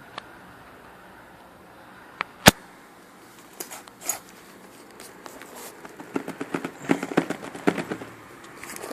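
Phone packaging being handled: a sharp snap about two and a half seconds in, then bouts of crackling, crinkling rustle.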